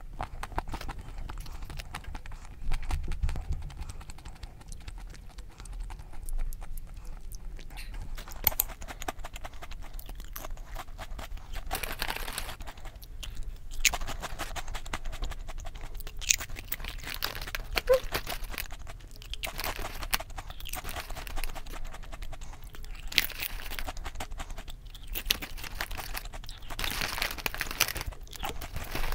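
Close-miked eating sounds: chewing with many small clicks, and the crinkle of a foil potato-chip bag being handled in several louder bursts.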